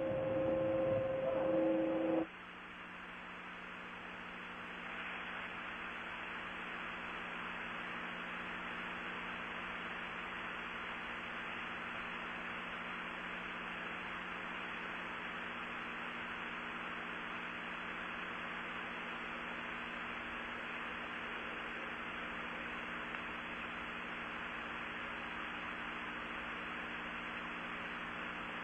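Steady hiss with a faint low hum from an open, silent broadcast audio line. About two seconds in, two steady tones stop abruptly and the level drops, leaving the hiss, which grows a little a few seconds later.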